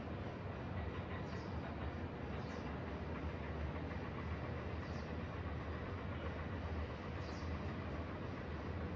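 Steady outdoor ambience: a continuous low rumble under an even hiss, with a few faint, short high chirps.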